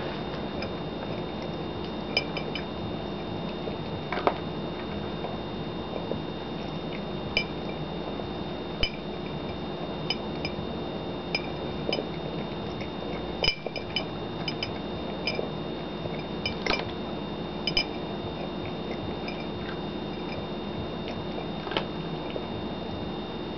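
A cat eating from a ceramic bowl: irregular small clicks and clinks of food and teeth against the bowl, over a steady background hum.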